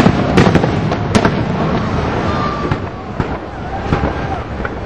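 Fireworks bursting overhead: a cluster of sharp bangs in the first second or so, then fainter scattered pops.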